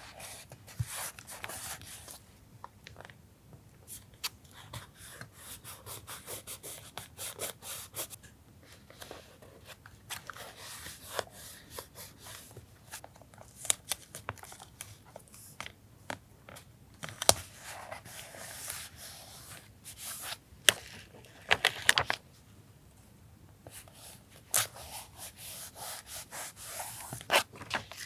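Paper being handled for a journal collage: rustling, tearing and rubbing down, with many scattered sharp taps and clicks.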